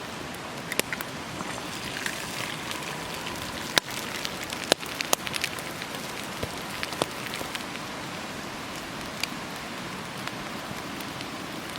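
Thick-cut smoked bacon sizzling over a campfire: a steady hiss with scattered sharp pops, two louder ones about four and five seconds in.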